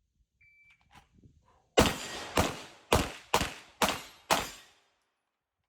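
Six pistol shots from a 2011-style pistol, fired about half a second apart in a quick string, each with a short echoing tail. A faint short tone sounds about half a second in, before the shots.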